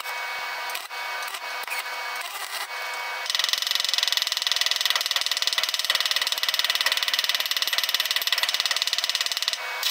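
A few scattered clicks, then about three seconds in, rapid, steady tapping of a chipping hammer peening fresh silicon bronze tack welds on a cast iron exhaust manifold, mashing the weld metal down to take tension out of the joint.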